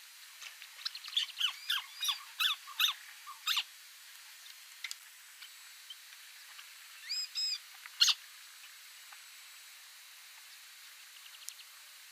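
White-browed crake calling: a fast series of sharp, loud chattering notes for about three seconds, then a few more notes around seven to eight seconds in.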